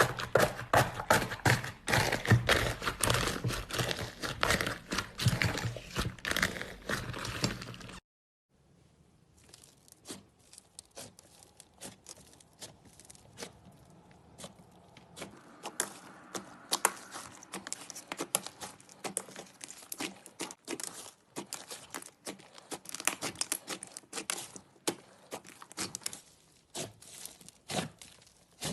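Slime being squeezed and pressed by hands, with dense crunchy crackling and popping. About eight seconds in, the sound cuts out briefly and comes back much fainter, as sparser crackles and pops.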